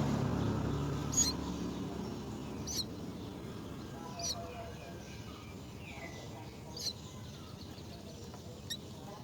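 Bird chirping at the nest: short, sharp, high chirps repeated about every one to two seconds, with a few brief falling notes in between. A low murmur is heard at first and fades out within about two seconds.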